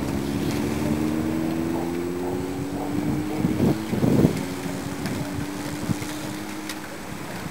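A motor vehicle's engine runs steadily behind a passing bunch of racing cyclists, its hum rising slowly in pitch, over the rush of tyres and wind on the microphone, with a brief louder burst about halfway through.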